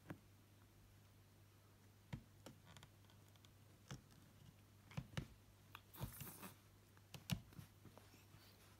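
Faint, scattered crisp clicks of a cat biting and chewing cat grass blades, with a brief rustle about six seconds in.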